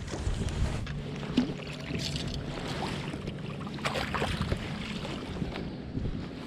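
A boat motor humming steadily, with wind noise and scattered short knocks and splashy strokes from the boat.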